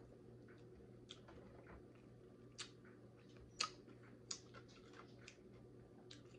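Near silence: a steady low hum with scattered faint clicks and mouth sounds of someone eating fried chicken, a few slightly louder ticks around the middle.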